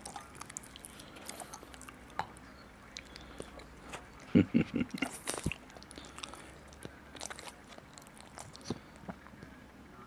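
Mouth and nose noises of a small flat-faced dog right at the microphone: scattered faint clicks and smacks, with a short run of louder smacks about four to five seconds in.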